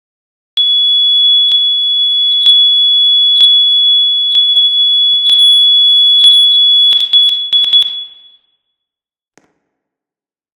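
Fire alarm sounder giving a loud, steady high-pitched tone, with a sharp tick about once a second. Near the end it stutters and stops about eight seconds in.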